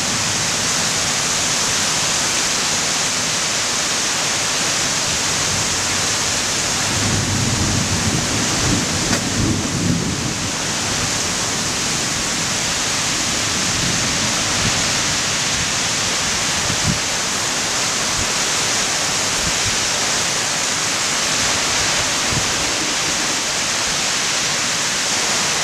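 Heavy, wind-driven rain pouring down steadily in a storm. A low rumble swells about seven seconds in and fades out by about ten seconds.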